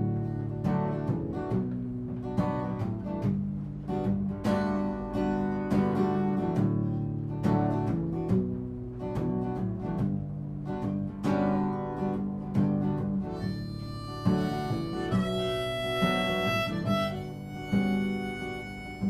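Acoustic guitar playing a song's instrumental introduction, plucked notes and chords in a steady rhythm. About thirteen seconds in, long held higher notes from a second instrument join over it.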